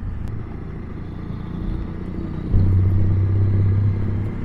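Triumph T100 sidecar outfit's parallel-twin engine running on the move. About two and a half seconds in, the engine note turns louder and steadier, then eases just before the end.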